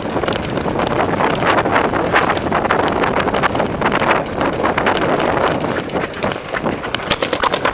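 Wind buffeting a helmet-mounted camera microphone as the wearer runs, with footfalls on dirt and gear jostling. Near the end comes a rapid string of sharp cracks: paintball markers firing.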